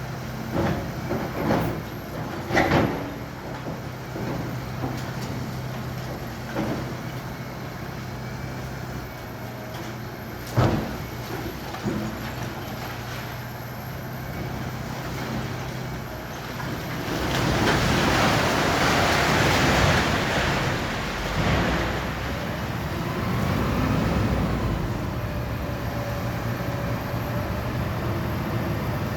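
A heavy construction machine's diesel engine running steadily while it demolishes a building. Sharp knocks and bangs of breaking masonry come in the first few seconds and again about ten seconds in, then a long loud rush of falling rubble lasts several seconds past the middle.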